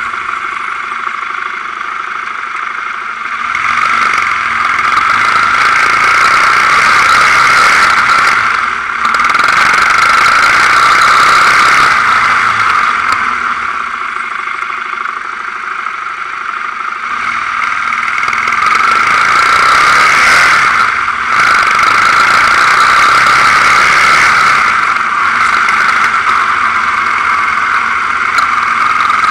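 Quad bike (ATV) engine running under way, with a high steady whine over it, swelling and easing several times as the ride goes on.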